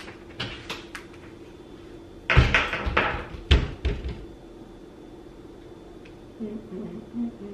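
Kitchen cupboard doors and groceries being handled while putting food away: a few light clicks, then a cluster of thumps and knocks between about two and four seconds in, over a faint steady hum.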